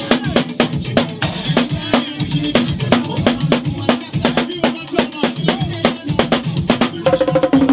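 Drum kit played live at a fast groove: rapid snare and rimshot strokes with bass drum and cymbals, and a tambourine mounted above the snare struck with the sticks. The high strikes break off briefly about seven seconds in.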